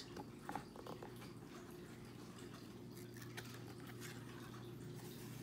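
Quiet room tone with a low steady hum and a few faint small clicks as a cardboard board book is handled and its page begins to turn.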